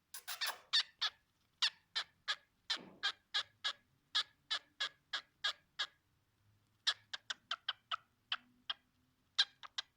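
Cockatiel giving beak 'kisses': a long run of short, sharp kissing smacks, about three a second, then quicker runs of them later on.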